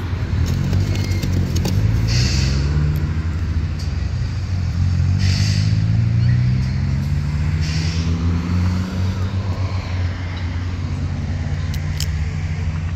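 Road traffic passing close by: a motor vehicle's engine pulling away, its pitch rising steadily over several seconds, over a steady low rumble of traffic. Short hissing sounds come about two, five and eight seconds in.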